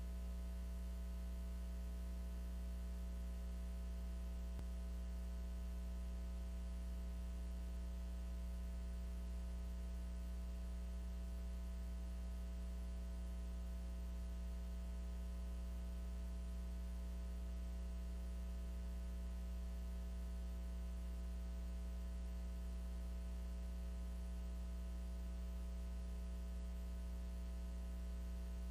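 Steady electrical mains hum: a low, unchanging buzz with several fainter higher tones stacked above it.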